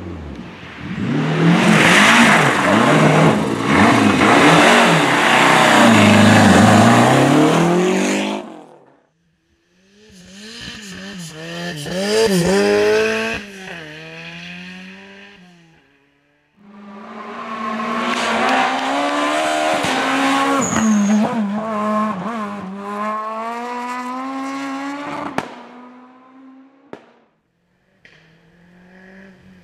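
Rally cars driven flat out on a special stage, in three separate passes. Each engine revs hard, climbing in pitch and dropping back at each gear change. The first pass has heavy tyre noise and the last ends with a sharp crack.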